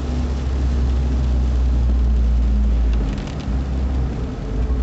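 A car driving, heard from inside the cabin: a steady low engine drone with tyre and road noise on the wet road. About three seconds in, the drone dips briefly and a few light clicks are heard.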